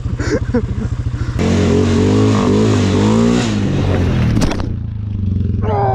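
Suzuki Vinson 500 ATV's single-cylinder four-stroke engine idling, then revved for about three seconds with the pitch rising and falling, before settling back to idle. A sharp click comes just as the revving ends.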